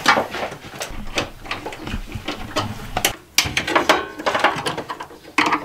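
Electrical wire being worked by hand into a metal breaker panel box: irregular clicks, scrapes and rustles of wire against the box.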